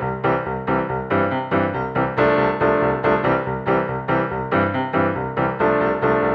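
Background music: a keyboard melody of evenly spaced struck notes, about three a second, each note fading quickly.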